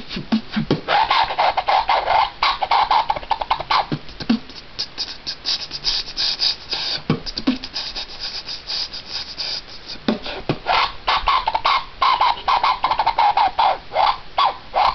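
Beatboxing: a fast, dense run of mouth percussion, clicks, kick-like pops and hissing hi-hat and snare sounds. A held mid-pitched hum runs under the beats in the first few and last few seconds, while the middle is a quick string of hissed high hits. Near the end he beatboxes into a hand cupped over his mouth.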